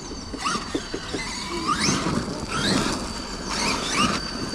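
Electric RC cars' brushless motors whining, sweeping sharply up in pitch several times as they accelerate. A steady high whine from the Bigfoot Customs cooling fans runs underneath.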